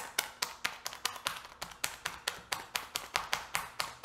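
A fork rapidly stabbing through the plastic film lid of a microwave rice pack, sharp taps about six a second, punching vent holes before microwaving.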